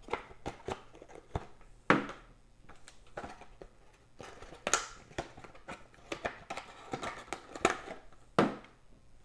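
Cardboard hobby box of trading-card packs being opened and handled by hand: a run of sharp knocks and clicks, loudest about two seconds in, midway and near the end, with light crinkling of wrapper plastic between.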